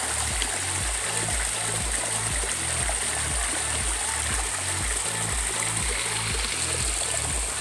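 Shallow creek water running steadily over rocks, a constant hiss, under background music with a steady bass beat.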